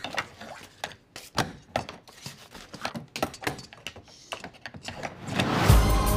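A wooden spoon knocking and clattering against the metal latch handles of a walk-in cooler door as it is forced through them: a quick, uneven run of clicks and knocks. Loud music comes in near the end.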